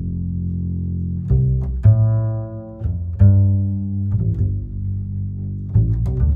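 Instrumental background music led by deep bass notes, a new note starting sharply every second or so.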